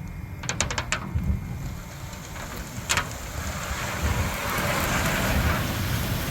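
Loose river rock being worked: a quick run of sharp clinks about half a second in, one more knock at about three seconds, then a few seconds of gravelly scraping and pouring. Low wind rumble on the microphone throughout.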